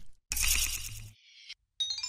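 Animated logo-intro sound effects: a sudden swishing hit about a quarter second in that rings on briefly as a high chime, then, near the end, a cascade of ringing chime notes entering one after another, each lower than the last.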